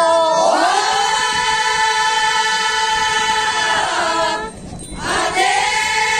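A group of women singing a traditional Changsa cultural song together, holding one long drawn-out note. They break off briefly about four and a half seconds in, then slide into another long held note.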